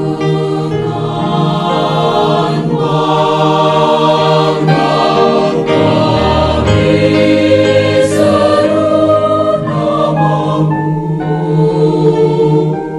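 Background choral music: a choir singing long held chords that change every second or two.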